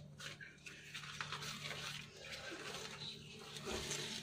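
Thin sheets of warqa (pastilla pastry) rustling and crackling softly as they are peeled apart by hand.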